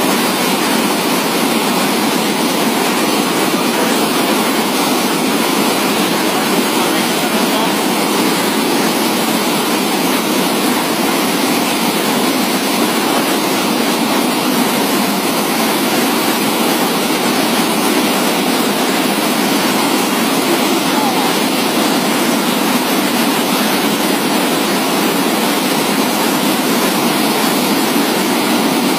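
Water gushing from a row of large pump-house outlet pipes into a concrete channel: a steady, loud rush of falling water.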